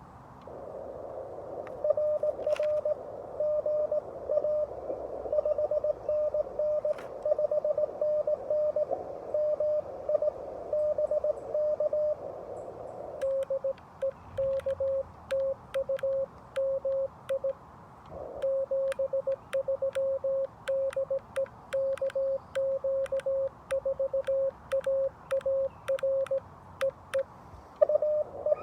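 Morse code from a Xiegu G90 HF radio, a single pitched tone keyed on and off. For roughly the first half it comes with a band of receiver hiss around it, a station being received. From about halfway the hiss drops away and the tone is the operator's own sending, with the clicks of a 3D-printed paddle at about 17 words per minute.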